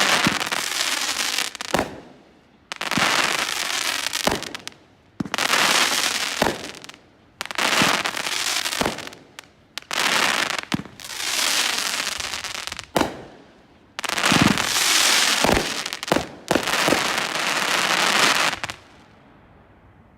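Brothers Pyrotechnics "Gunslinger" consumer fireworks cake firing a series of about nine shots, one every couple of seconds. Each shot is a sharp launch thump followed by a second or two of bursting noise. The firing ends near the end, when the cake finishes.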